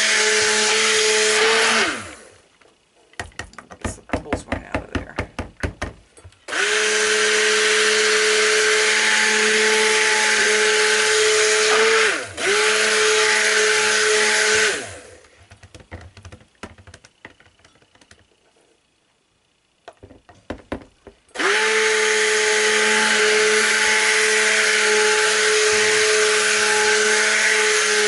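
Electric stick blender running in raw soap batter, a steady motor whine in three bursts: it stops about two seconds in, runs again from about six to fifteen seconds with a brief dip, and starts once more near the end. Between bursts there are light clicks and knocks.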